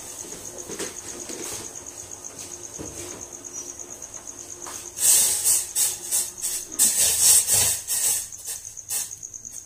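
A cricket chirps steadily in a fast, even pulse. From about five seconds in there are three or four seconds of loud, irregular rattling clatter.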